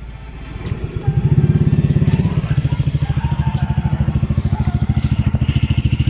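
Honda Click Game Changer scooter's single-cylinder four-stroke engine catching about a second in and settling into a steady idle through an aftermarket Akrapovic exhaust, a fast even pulsing.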